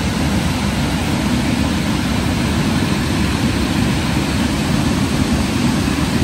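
Steady, deep rush of fast water pouring over a stream's cascades and rapids.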